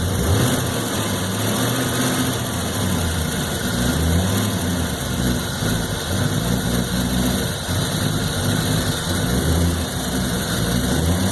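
1993 Corvette's LT1 5.7-litre V8 idling roughly, its low engine note wavering up and down in pitch rather than holding steady: the rough idle that makes the car stutter when idling around town.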